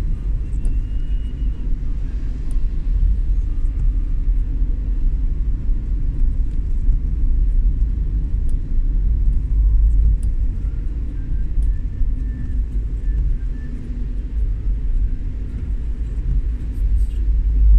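Steady low rumble of a vehicle travelling along a road, with faint short tones from other traffic over it.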